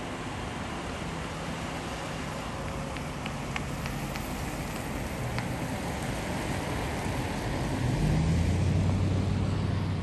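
Traffic on a slushy street: a steady hiss of tyres on wet road, with a vehicle's engine passing close and loudest from about eight seconds in.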